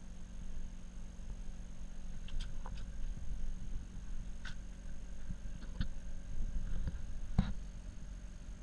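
Steady low hum of a boat's engine, with scattered taps and knocks as a hand handles a large bigeye tuna's fins on the deck; the sharpest knock comes about seven seconds in.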